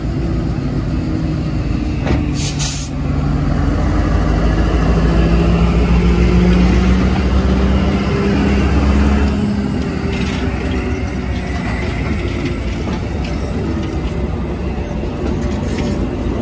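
Two diesel locomotives, NJ Transit 1003 and SRNJ 3517, rumbling slowly past with their engines running. The engine sound swells to its loudest around the middle, then eases as the lead unit goes by. About two seconds in there is a short hiss of air.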